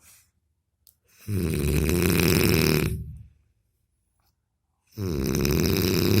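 A man snoring: two long snores of about two seconds each, separated by a silent gap of under two seconds.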